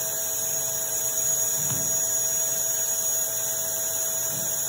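Steady machine hum with a constant high air hiss from the running fluid-bed coating equipment and its process-air supply.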